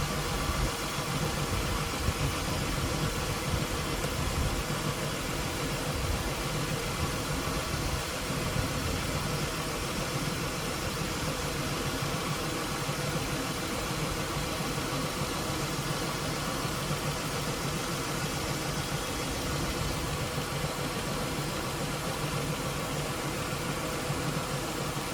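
Dodge Intrepid's V6 engine idling steadily, stumbling a little with a misfire on one cylinder.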